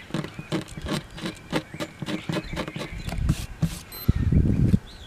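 Quick, short scraping strokes of a small hand blade over the finished spruce top of an acoustic guitar, about six strokes a second, taking leftover CA glue and tape residue off the finish. About four seconds in, the strokes stop and a brief burst of low rushing noise follows.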